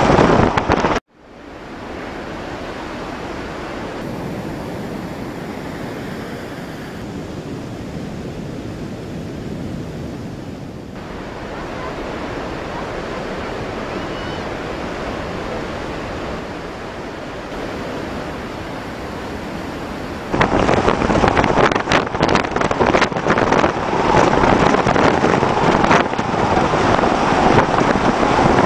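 Steady wash of sea water along a ship's hull, then about two-thirds through a sudden switch to louder storm wind gusting and buffeting the microphone, with crackling spray. A short burst of the same kind of wind noise cuts off abruptly about a second in.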